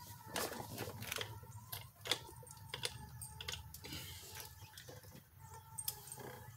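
Screws and hand tools being handled: irregular light clicks and small metallic jingles.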